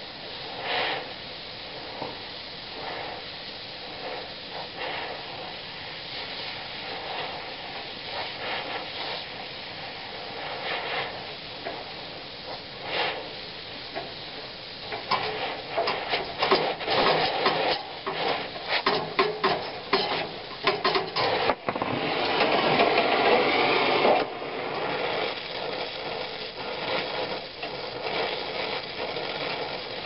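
Brazing torch flame hissing steadily on the copper joints of an evaporator coil, heating them to sweat out the old thermal expansion valve. From about halfway through come rapid clicking and rattling, then a louder rush for about two seconds.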